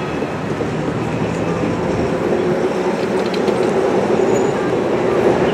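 Street traffic: a steady roar of passing road vehicles, with a low hum that joins in about two seconds in.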